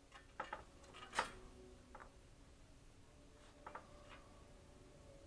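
Scattered light clicks and taps, the loudest about a second in, over a faint steady hum.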